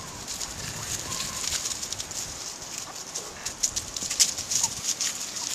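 Chickens (hens) pecking and scratching for thrown grapes in dry leaf litter: many quick clicks and rustles, with a few soft clucks.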